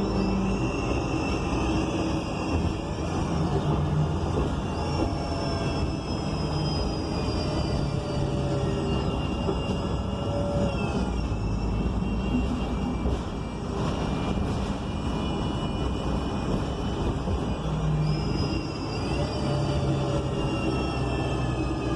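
Inside a 2021 ENC Axess bus under way: the Cummins Westport L9N natural-gas engine runs with a steady rumble and road noise. High whines from the drivetrain glide up and down in pitch several times as the bus speeds up and slows, typical of its Voith D864.6 automatic transmission.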